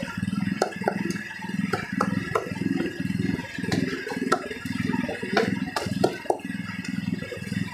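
A cleaver chopping roast duck on a round wooden chopping block: irregular sharp knocks, a dozen or more, over a steady low hum.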